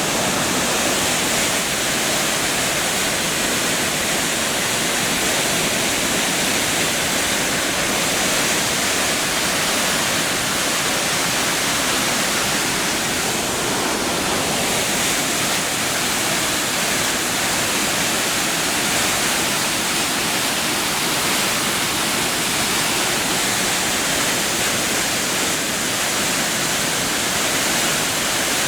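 A waterfall pouring steadily into a mountain stream: a constant, loud rushing hiss of falling water that stays even throughout.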